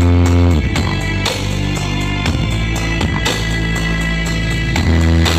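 Music with deep sustained bass notes played loud through a large outdoor sound system of line-array speakers and stacked subwoofers, run up for a sound check.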